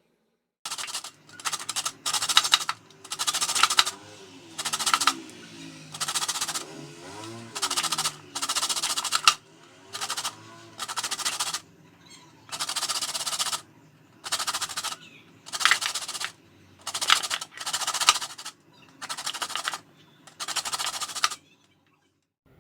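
Lemon peel being grated on a fine hand grater: a series of about fifteen short scraping strokes, one roughly every second, taking off only the thin outer zest.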